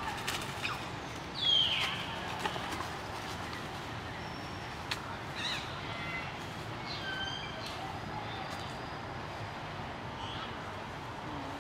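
Several short, high-pitched animal calls over steady outdoor background hiss. The loudest is a falling squeal about one and a half seconds in, and fainter chirps come scattered after it.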